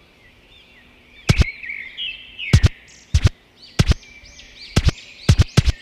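Birds chirping and twittering, cut by about nine sharp clicks of a TV remote's buttons being pressed. The clicks come singly at first and then in quick pairs near the end.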